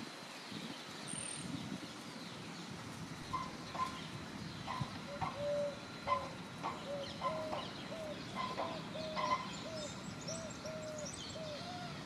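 Eurasian hoopoe calling: a run of short, soft hooting notes, about two a second, starting about five seconds in. A few faint high chirps from small birds come near the end.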